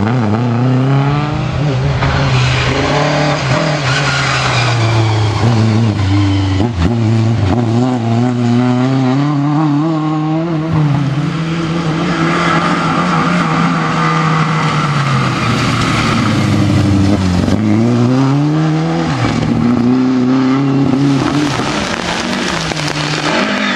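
Rally car engine driven hard on a special stage, its pitch rising and falling with gear changes and lifts of the throttle, with a spell of tyre squeal about halfway through.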